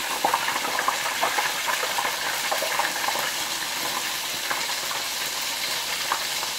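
Hot oil deep-frying flour-dusted green-lipped mussels: a steady sizzle with dense, irregular crackling as the water in the mussels meets the oil.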